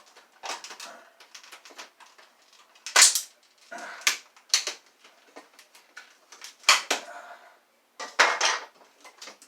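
Irregular plastic clicks and clatters of a Kenmore vacuum wand being handled and pried apart, with two louder sharp snaps about three and seven seconds in.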